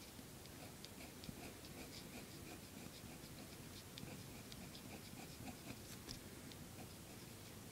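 Fine-tip ink pen scratching quick short strokes on paper, hatching texture into a drawing. It comes as faint little ticks a few times a second.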